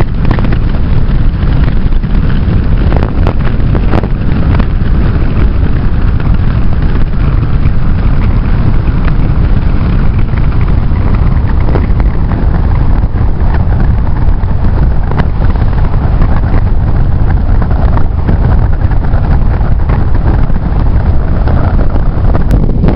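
Heavy wind buffeting the microphone: a loud, steady low rumble with no break.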